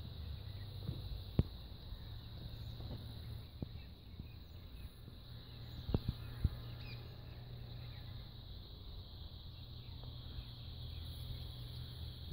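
Steady high-pitched insect chirring over a low rumble, with a few sharp knocks: one about a second and a half in and two close together around six seconds in.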